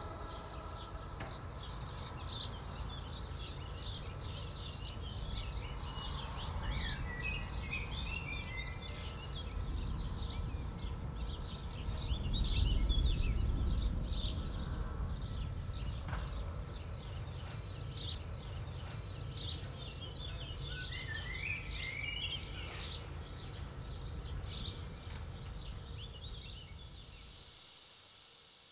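Many small birds chirping and twittering over a steady low rumble. The rumble swells about twelve seconds in, and everything fades out near the end.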